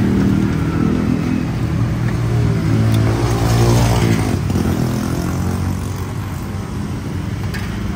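A road vehicle's engine running loud and close, with its pitch rising about three seconds in and falling away again a second or so later, as of a vehicle passing by on the street.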